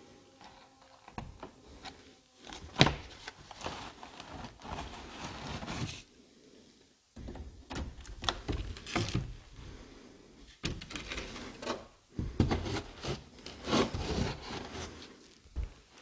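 Handling noise: irregular rubbing and scraping against wood, in three stretches with short pauses, and a few sharp knocks.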